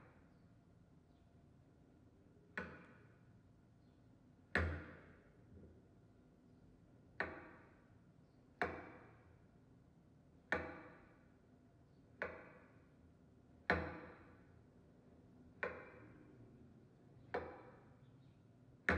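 A large sword-like knife blade slicing through a raw potato and striking the countertop with each cut: about nine sharp chops, one every one and a half to two seconds, each with a short ringing tail.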